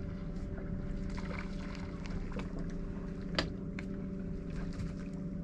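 Boat's outboard motor running steadily at low trolling speed, a constant hum, with a few light clicks and one sharper tick about three and a half seconds in.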